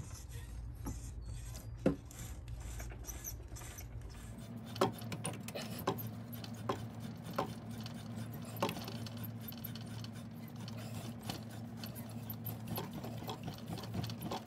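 Tap cutting a 10 x 0.75 section thread into ebonite, turned by hand a bit at a time: dry scraping with a sharp click about once a second, over a steady low hum.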